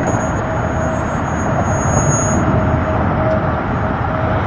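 Toyota pickup truck's engine running steadily at low speed as it reverses a small trailer down a concrete boat ramp.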